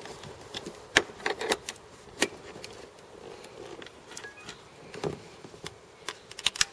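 Sharp plastic clicks and knocks from a 12 V car-socket plug being handled and pushed into the socket on a plastic battery box, with its flip cap and cables moving. The clicks are scattered, with a quick cluster near the end.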